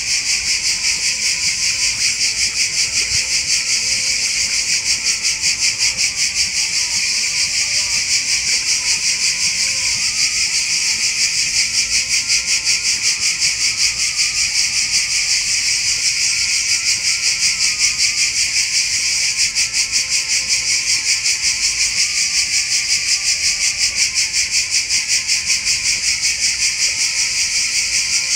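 Cicadas buzzing in a loud, unbroken chorus, a high hiss-like drone pulsing several times a second.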